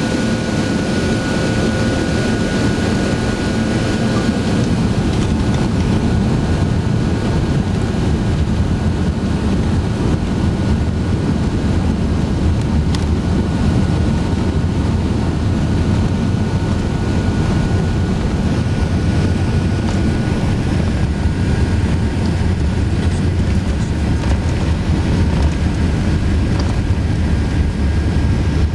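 Steady rumble inside the cabin of a Qantas Airbus A380 taxiing, its four Rolls-Royce Trent 900 engines at low taxi power, with a faint high whine that fades out about two-thirds of the way through.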